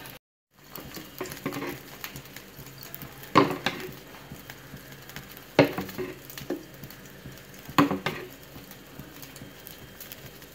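Gas burner heating an iron kadai with a little oil: a faint steady hiss, broken by three sharp clicks about two seconds apart.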